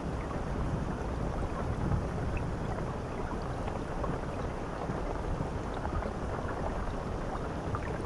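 Shower head spraying water onto a tiled shower floor: a steady, deep rushing hiss of falling water with scattered small droplet ticks.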